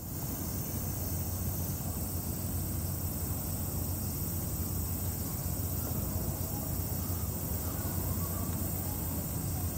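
Steady outdoor background noise: a constant low rumble with an even high hiss above it, unchanging throughout.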